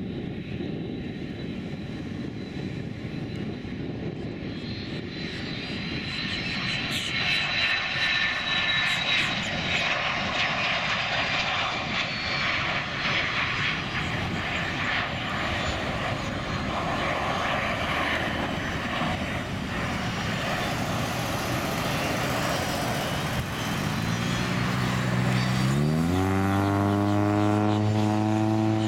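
Hawker 900XP business jet's twin turbofan engines at takeoff power: a steady jet roar with a high whine that falls in pitch as the jet rolls past and lifts off. Near the end a louder, deeper pitched hum, rising in steps, comes in over it.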